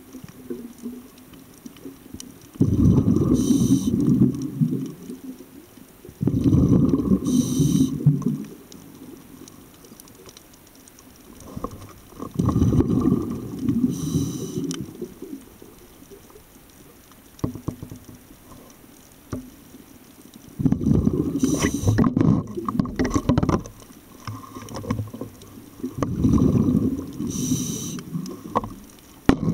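Scuba diver's regulator breathing underwater: a rumbling rush of exhaled bubbles every few seconds, with a short hiss from the regulator between breaths.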